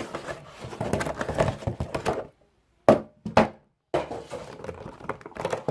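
Cardboard box and plastic packaging of a Funko Pop figure being handled and pulled apart: crackly rustling, two sharp clicks about three seconds in, then more rustling.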